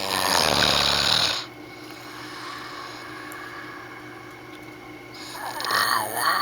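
A sleeping man snoring: one loud, harsh snore lasting about a second and a half, then quieter breathing. His snoring is put down to congested sinuses. A voice comes in near the end.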